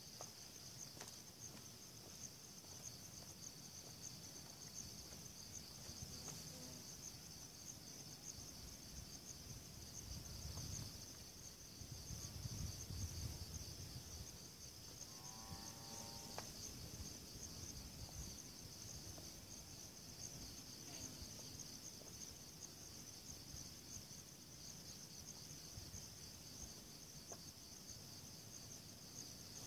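Faint, steady high-pitched chirring of insects, with a low rumble around the middle and a brief distant call soon after.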